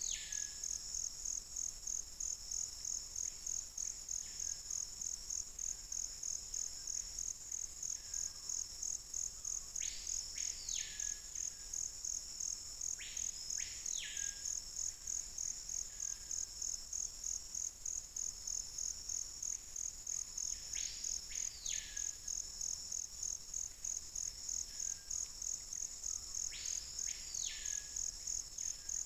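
A steady, high-pitched pulsing insect chorus, with a forest bird known locally as peito-de-aço calling every few seconds. Each call is a pair of clear whistled notes that rise steeply and fall back, ending in a short lower note; four calls stand out louder, with fainter ones between.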